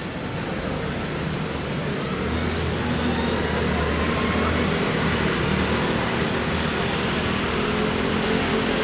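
Street traffic: a motor vehicle's engine hums low and steady over general road noise. The hum is strongest from about two seconds in and fades a little after the middle.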